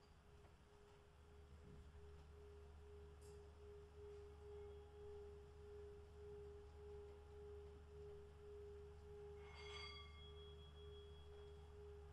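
A faint, steady pure tone held throughout, wavering slightly, over a low hum. About three-quarters of the way through, a single bell-like ding rings out.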